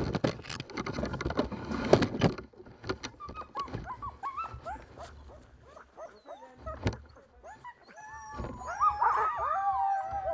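Sled dogs whining and yipping in short rising-and-falling cries, building near the end to several dogs whining at once. The first two seconds hold a louder spell of scraping and rustling.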